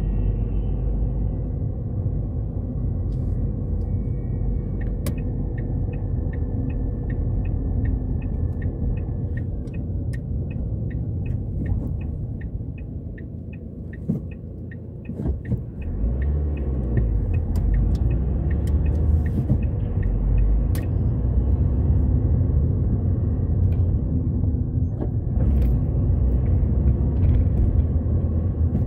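Car engine and road rumble heard from inside the cabin while driving. For several seconds the turn indicator ticks steadily, about two and a half ticks a second, as the car eases to a junction. The rumble then grows louder as the car pulls away.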